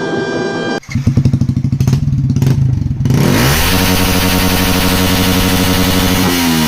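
Background music cuts off just under a second in, giving way to a Yamaha R15 V3's single-cylinder engine running with a loud, uneven pulsing idle. The engine is revved up about three seconds in, held high for about three seconds, and drops back near the end.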